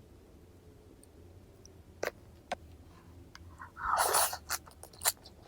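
Close-miked eating of raw fish: a few soft mouth clicks, then a loud crunchy bite about four seconds in, followed by quick chewing clicks.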